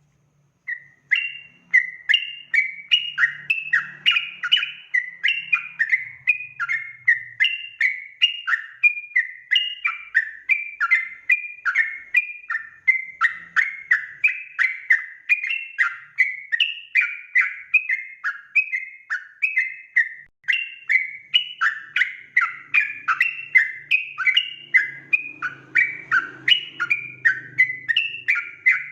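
Yellow-vented bulbul song: a fast, unbroken string of bubbling phrases, two or three a second, starting just under a second in.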